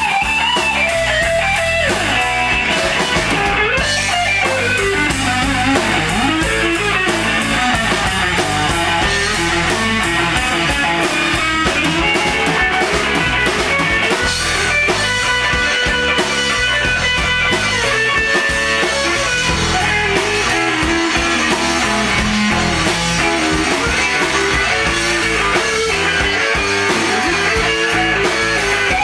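Live blues-rock band playing an instrumental passage: a lead electric guitar with bending notes over bass guitar and drum kit.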